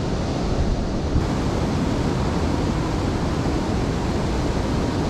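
Steady rush of river water spilling over a low dam, with wind rumbling on the microphone.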